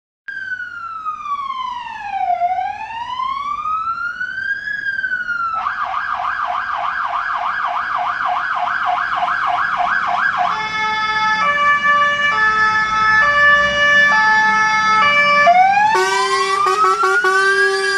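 Fire engine's electronic siren changing patterns. It starts with a slow rising-and-falling wail, switches to a fast warble about five seconds in, then to stepped alternating tones, and goes back to a wail near the end, when a steady lower horn-like tone joins it.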